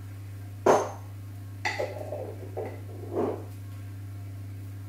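Spoon clinking and scraping against a tahini jar and bowl as tahini is spooned out: one sharp clink about a second in, then a few softer scrapes and taps, over a steady low hum.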